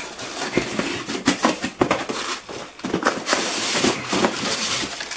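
Cardboard box being opened and handled by hand: scraping, rustling and scattered knocks, with a longer sliding rasp about three seconds in.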